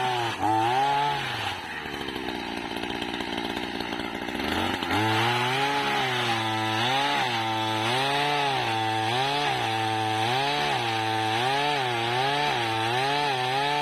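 Small engine of a motorized oil palm pole pruner running hard, its pitch rising and falling over and over as the throttle is worked during cutting. For a few seconds near the start the steady engine note gives way to a rougher, lower sound before the repeated revving resumes.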